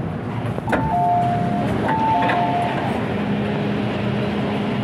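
MTR M-Train's electronic chime sounding twice, each time a high tone stepping down to a lower one, about a second apart, just after a sharp knock. A steady low hum of the train follows.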